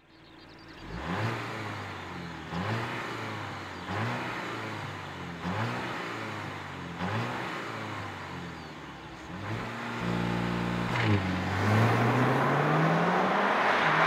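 Audi car engine revved in short blips about every second and a half. Then it is held high for about a second and finally climbs in one long, rising rev that grows loud near the end.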